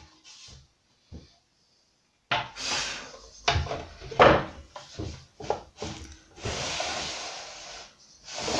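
Makita aluminium guide rail being shifted into place on a worktop, then the Makita SP6000 plunge saw set on the rail and slid along it, not running. About two seconds in, a run of knocks and scraping rubs begins, with a longer steady scrape near the end.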